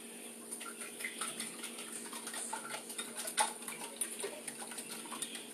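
Eggs and milk being whisked in a bowl: quick, uneven clicking of the utensil against the bowl's sides, starting about half a second in.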